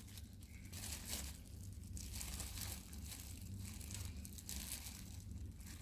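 Faint rustling and light clicking of small plastic parts being handled, as the gearbox of a cheap cordless screwdriver is picked apart by hand. It comes as soft, scattered ticks and rustles over a low hum.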